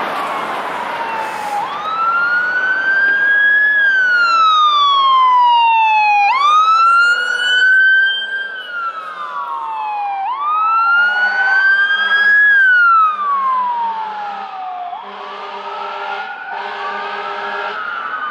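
Fire apparatus sirens wailing as the responding fire engine and support vehicle pass, in slow rising and falling sweeps, with a quick upward sweep twice. In the second half a second, fainter siren wails over it, and a low tone pulses on and off.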